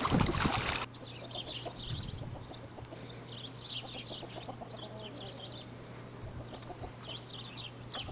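Duck splashing in a plastic wading pool, cutting off suddenly under a second in. Then a quieter farmyard background of chickens clucking, with repeated bursts of high chirping calls.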